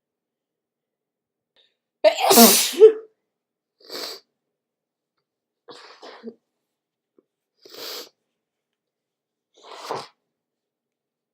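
A single loud human sneeze about two seconds in, followed by a few short, much quieter sniffs from a stuffy, sniffly nose.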